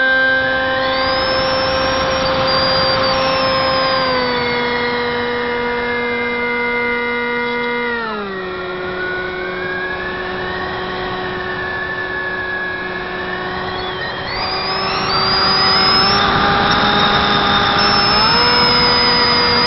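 Brushless electric motor and 6x4 propeller of a Zeta Wing Wing Z-84 flying wing running in flight, heard from a camera mounted on the plane: a steady whine that steps down in pitch about four seconds in and again about eight seconds in, then steps back up near the end. A rush of air swells over it about three-quarters of the way through.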